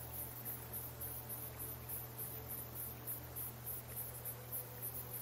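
Crickets chirping steadily at a few chirps a second in a faint nature-ambience bed, with a low steady hum beneath.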